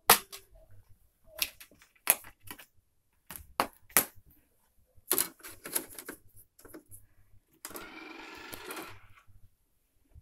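A string of sharp, irregular clicks and knocks, about a dozen over six seconds, then a rustling noise lasting just over a second near the end.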